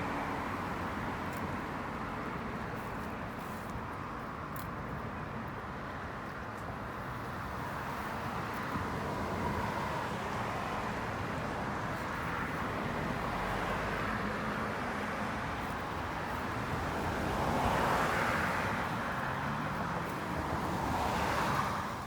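Steady road traffic noise, with passing cars swelling louder twice near the end.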